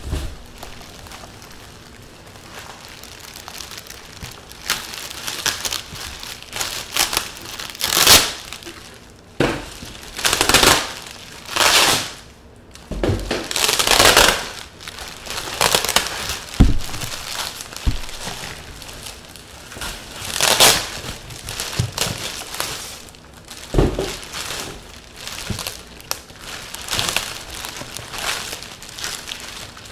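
Plastic wrap and bubble wrap crinkling and rustling in repeated swells as a large wrapped cabinet is handled and pulled from its cardboard box, with an occasional knock.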